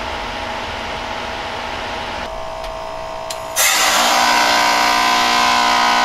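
Heat pump outdoor unit running steadily, then about two seconds in its upper hiss drops away with a click or two. About three and a half seconds in comes a sudden loud rush as the unit switches into defrost mode, settling into a louder steady compressor hum with several fixed tones. This is the normal sound of a forced defrost cycle.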